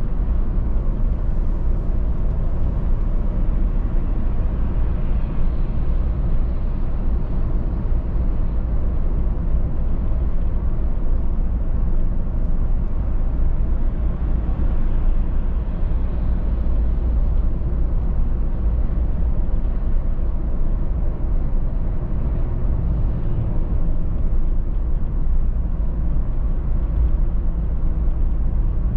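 Car interior noise while cruising on a highway: a steady low rumble of engine and tyres on the road, with an even hiss of road and wind noise above it.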